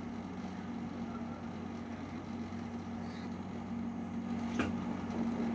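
A steady low mechanical hum, with a single click about four and a half seconds in.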